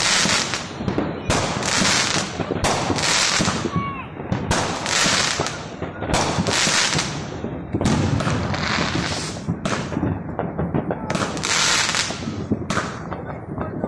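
Consumer aerial fireworks bursting overhead one after another, about one burst every second or so. Each bang is followed by a spell of crackling.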